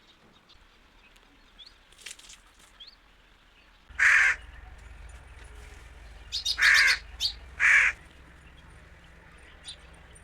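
A bird calling: three loud, short calls about four, seven and eight seconds in, with a couple of shorter calls between them and faint chirps in the first few seconds.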